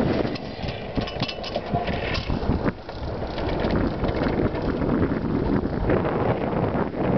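Wind buffeting the microphone as a small iceboat glides past close by. In the first few seconds the wind noise dips and a brief hiss and scrape of its runners on the ice comes through, then the wind buffeting returns.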